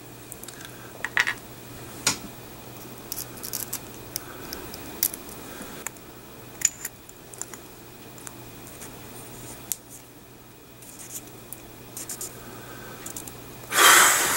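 Small metal parts of a Kanger UniTank clearomizer clicking and scratching in the fingers as a shorted coil is swapped for a new one and the tank is screwed back together: scattered light ticks and scrapes. A louder rustle of handling comes right at the end.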